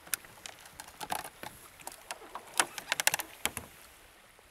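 A scatter of sharp clicks and knocks as a sea kayak contact line is deployed by hand: its metal snag-free connectors clip and knock against the kayak deck and deck lines. The knocks come thickest and loudest between about two and a half and three and a half seconds in.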